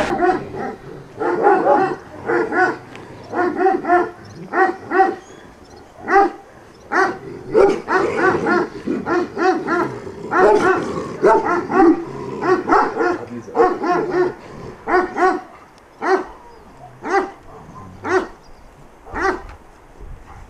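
A dog barking over and over, in quick runs of a few barks at a time, getting fainter near the end.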